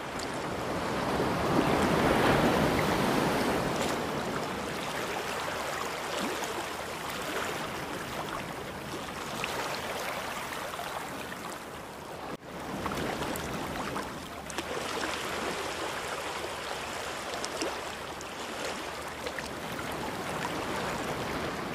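Steady rushing noise, swelling about two seconds in, with a brief dropout near the middle.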